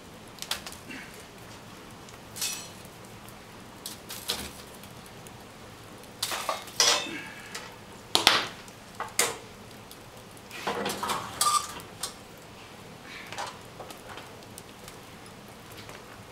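Metal clinks and clanks from the iron fittings of an open wood fireplace being handled, in several short clusters, over the crackle of the burning log fire.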